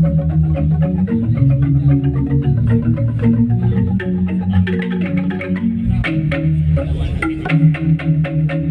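Balinese gamelan ensemble playing a tabuh: metallophones struck in a fast, dense stream of ringing notes, with a strong low stroke about six seconds in.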